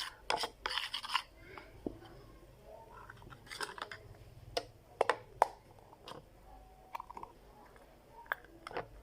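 Intermittent scraping and sharp clicks of plastic against a bowl, with a few short scratchy rubs, as white glue is emptied into the bowl to make slime.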